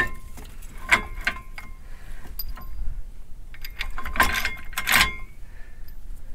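Metal clinks and clicks from hand work on an RV trailer's wheel hub and brake drum, with some brief ringing; the sharpest come about four and five seconds in.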